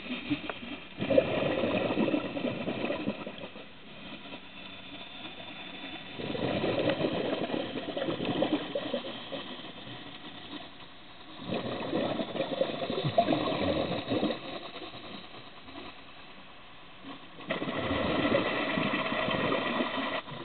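Scuba diver's regulator underwater, exhaled bubbles gurgling out in four bursts of about three seconds each, with quieter pauses between breaths.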